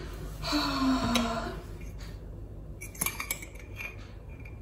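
Metal cutlery clinking and scraping against a ceramic mug as it pokes into a microwaved mug cake, with a few light ringing clinks about three seconds in. A brief wordless vocal sound comes before it, near the start.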